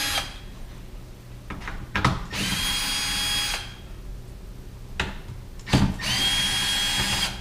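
Cordless drill-driver backing screws out of the sheet-metal case of a TIG welder's water cooler: two runs of about a second each, the motor whine rising and then holding steady, with a few sharp clicks between runs.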